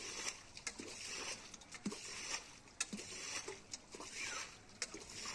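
Muddy water being bailed with a metal bowl: repeated scoops and splashes, roughly one a second.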